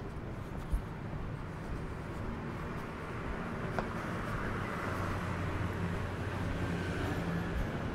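Street traffic: a motor vehicle's engine hums nearby, growing louder from about halfway through as it comes closer.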